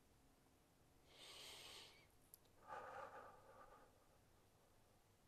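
A man breathing slowly and softly while holding a standing side-bend stretch: one airy, hissing breath about a second in, then a lower breath about three seconds in, with a faint click between them.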